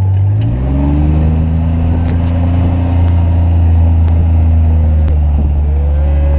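Kawasaki Mule UTV engine speeding up at the start, its pitch rising for about a second, then running steady and loud while under way.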